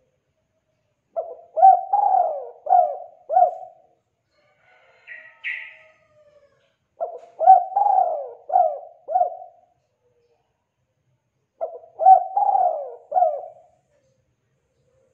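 Spotted dove (tekukur) cooing: three phrases of four or five rolling coo notes each, about five seconds apart. A brief, fainter higher chirp comes between the first two phrases.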